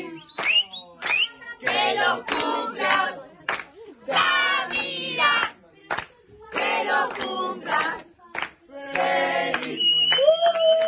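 A group of young voices singing together in short phrases with gaps between them, with hand claps.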